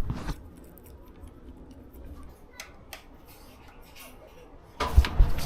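A few faint, light clicks of parts and tools being handled, then a louder clatter with low thuds starting near the end.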